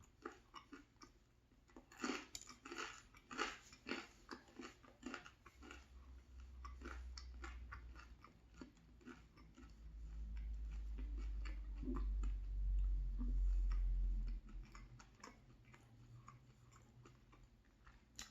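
Close-up chewing of food, with crisp crunching bites in the first few seconds that thin out later. A low rumble swells in the middle and is the loudest part.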